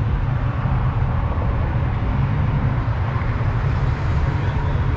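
Lifted Ford F-150 pickup running, a steady low rumble with no change in level.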